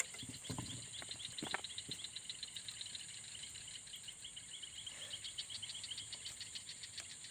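Night insects, crickets, calling: a steady high-pitched drone with a rapid run of chirps over it. A few soft knocks in the first two seconds.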